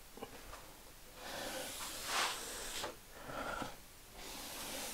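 Sponge drawn in long single pulls along an oak tabletop, evening out a wet grey tint finish. Soft swishing strokes: a long one starting about a second in, then two shorter ones.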